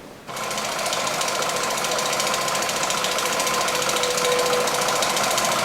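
A motor-driven machine running steadily with a fast, even rattle and a constant hum; it starts abruptly just after the beginning.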